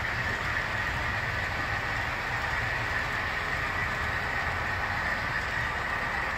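Model freight train of boxcars rolling steadily past on the layout track, giving an even rumble and hiss of the wheels on the rails.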